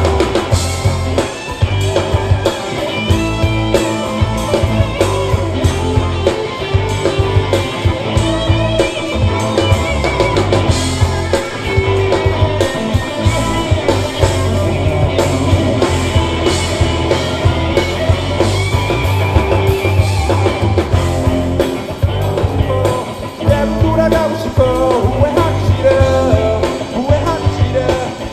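Live amplified rock band playing: electric guitars, bass guitar and a drum kit with a steady beat of drum and cymbal strokes.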